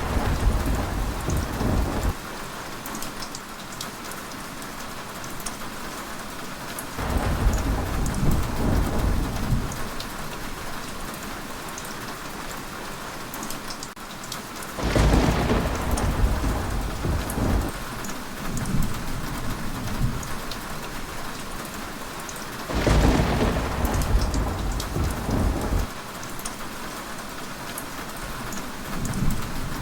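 Heavy rain falling steadily, with low rolling rumbles of thunder that swell and fade about every eight seconds.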